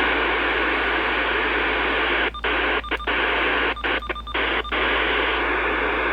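Uniden BC370CRS scanner radio putting out a steady static hiss through its small speaker. The hiss cuts out briefly several times in the middle.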